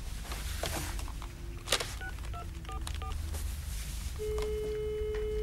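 Telephone line heard through the handset: a steady dial tone, a quick run of touch-tone key beeps as a number is dialled, then a steady ringing tone on the line starting about four seconds in.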